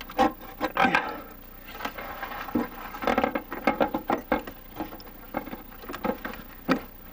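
Irregular knocks, clicks and scraping of parts being handled and worked by hand, busiest in the middle.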